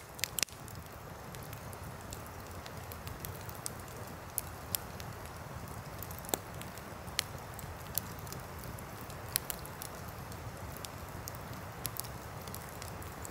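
Wood campfire crackling, with scattered sharp pops and snaps at irregular intervals over a steady rushing background that is most likely the river.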